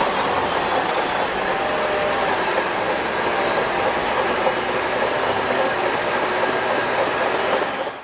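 Shantui DH17 crawler bulldozer working, its diesel engine running steadily under the clatter of its steel tracks as it pushes sand. The sound cuts off suddenly at the end.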